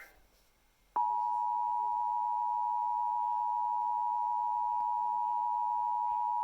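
Emergency Alert System attention signal: after about a second of silence, one steady unbroken tone starts suddenly and holds. It announces an emergency alert, here a severe thunderstorm warning.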